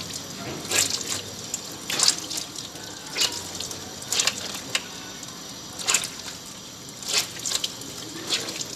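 A cloth being rinsed and wrung out in a stainless-steel sink under a running tap. Water splashes and squelches in short bursts about once a second over the steady stream.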